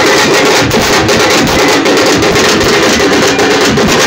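Loud, fast drumming: a large bass drum struck with a stick together with a small hand-held drum beaten with sticks, a dense run of rapid strokes.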